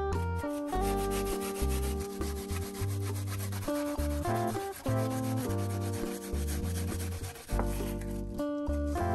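Guitar-based music with bass notes, overlaid through most of its length by a dense scratchy, rasping noise made of fine rapid strokes that stops shortly before the end.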